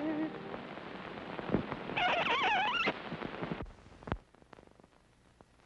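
An early-1930s sound-cartoon score ends on a held chord. Then comes the hiss and crackle of a worn optical soundtrack, with a brief wavering high tone about two seconds in. After that only faint crackle and scattered ticks remain.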